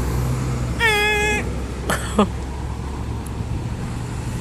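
Traffic passing on a road, a low steady rumble. About a second in, a short high-pitched steady tone sounds, and about two seconds in, a quick falling squeal.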